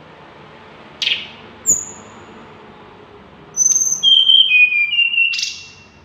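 Tledekan gunung singing: a short falling call about a second in and a thin high whistle just after, then a louder varied phrase of clear whistled notes that begins high and drops to a run of lower held notes.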